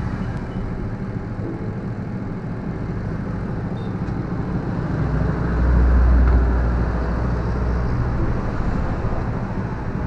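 Samsung top-loading washing machine on its spin (dryer) cycle: the motor and drum spin with a steady hum and whir. A deeper rumble swells for a second or two past the middle.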